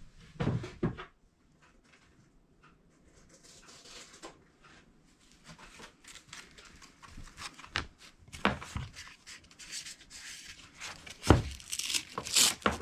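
Scattered handling knocks and clicks at a workbench, then near the end a high tearing sound as a worn sanding disc is peeled off a random orbital sander's hook-and-loop pad. The sander is not running.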